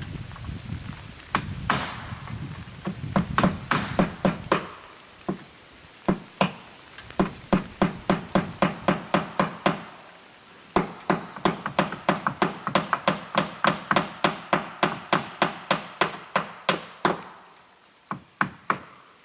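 Hammer driving nails while aluminum fascia trim is fastened on, in quick runs of sharp strikes, about three to four a second, with short pauses between runs.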